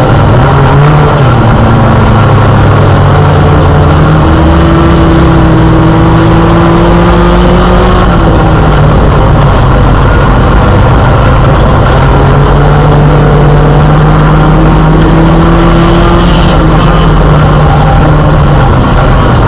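Mini stock race car's engine heard from inside the cockpit, running hard and loud. Its pitch climbs slowly twice and drops back after each climb.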